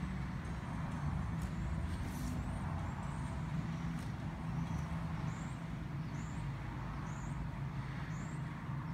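A steady low mechanical hum, with a few faint clicks. In the second half a run of short, faint high chirps comes about every two-thirds of a second.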